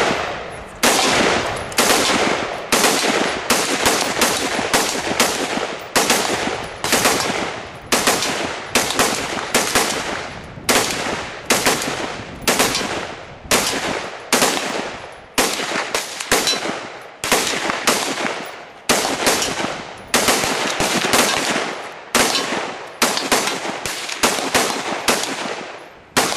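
Rapid semi-automatic gunfire from an AR-style rifle and a handgun fired together, about one or two sharp shots a second at an irregular pace, sometimes in quick pairs, each trailing off in a short echo.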